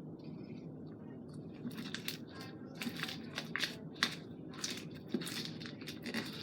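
Sticky slime being squeezed and pulled by hand, giving a quick run of wet clicks and pops.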